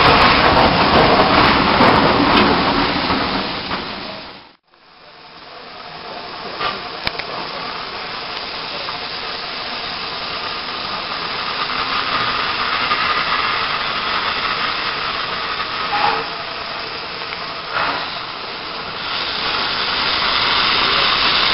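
Loud rushing noise right beside a steam locomotive, stopping abruptly about four seconds in. Then a steady hiss of steam venting from the locomotive's open cylinder drain cocks, growing louder near the end, with a couple of faint clicks.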